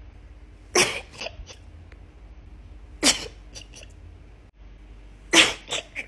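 A woman sneezing three times in a row, about two seconds apart, in a sneezing fit. Each sneeze is a sharp, loud burst followed by a couple of smaller, shorter sounds.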